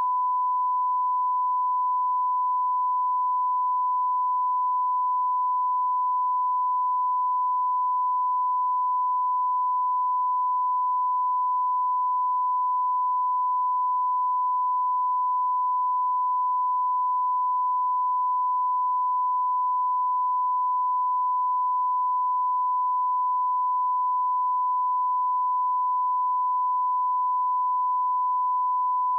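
TV colour-bars test tone: the 1 kHz reference beep broadcast with colour bars, one continuous pure tone at a single steady pitch and level.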